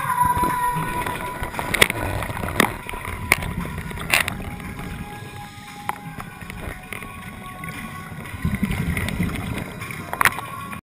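Muffled underwater noise picked up through a camera's waterproof housing, with a few sharp clicks and faint steady tones. It cuts off suddenly near the end.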